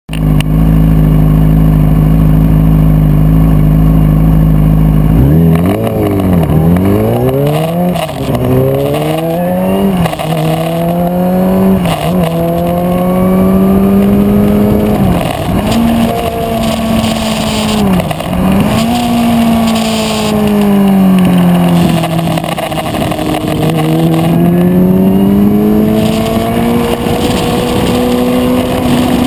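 Motorcycle engine idling steadily, then about five seconds in it pulls away and revs up. The pitch climbs and dips several times as the rider works the throttle and gears, then holds a steadier run up the freeway on-ramp. Wind and road noise run under it.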